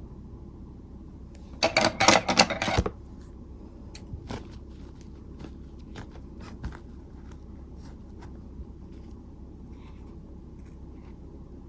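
A disposable four-layer mask handled and pulled apart. There is a loud burst of crinkly rustling lasting about a second near the start, then scattered small clicks and scrapes over a steady low hum.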